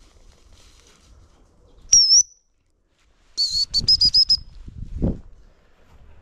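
Gundog whistle blown twice: a short, high warbling blast, then a longer blast broken into quick pips, both loud and close. A low thump of brush or footsteps follows about a second later.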